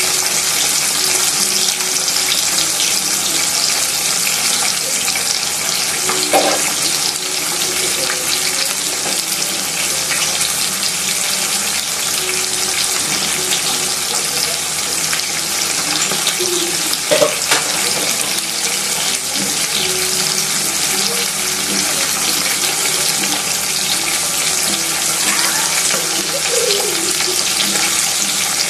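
Dried split milkfish (dinaing na bangus) frying in hot oil in a pan: a steady sizzle.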